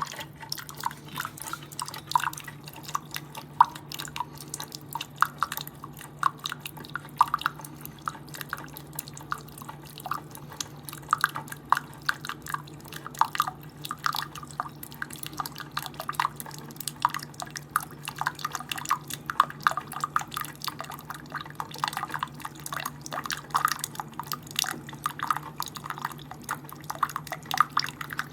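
Keurig K-Supreme Plus pod coffee maker brewing an 8-ounce cup: coffee drips and splashes into the mug in a quick, irregular patter over a steady low hum from the machine.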